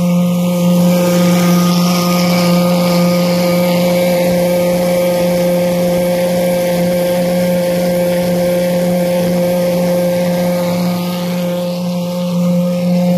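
High-pressure drain jetter running steadily, its engine and pump holding one pitch over a hiss of water as the hose makes a final flush of a sewer pipe just cleared of tree roots.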